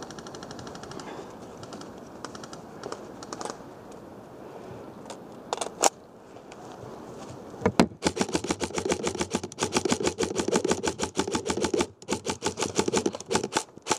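Airsoft electric gun (AEG) firing full-auto: a rapid, even rattle of shots in one long burst from about 8 seconds in, then a brief break and a second burst near the end. Fainter ticking of more distant airsoft fire is heard earlier.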